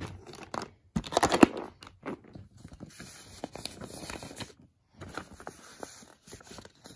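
Highlighters and markers clattering together as they are handled and put into a plastic binder pencil pouch, with the plastic crinkling; the loudest clatter comes about a second in, followed by lighter rustling and clicks.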